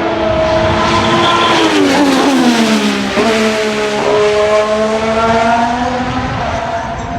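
Alpine A523 Formula 1 car's 1.6-litre turbocharged V6 at speed on track. The engine note falls, jumps up in pitch twice in quick succession, typical of downshifts, then holds steady before easing down near the end.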